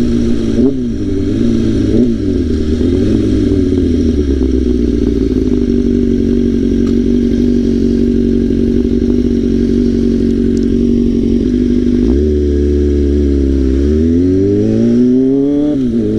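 Straight-piped Kawasaki ZX-6R engine under way, heard from the bike: a couple of quick shifts early on, then a steady cruising note through the middle. About twelve seconds in the revs drop, and from about fourteen seconds the pitch climbs as the bike accelerates again.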